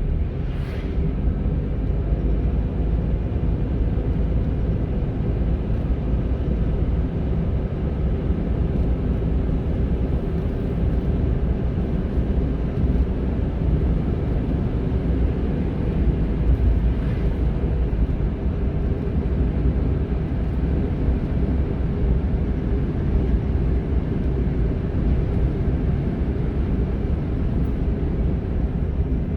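Honda N-ONE kei car on the move: a steady low rumble of engine and road noise.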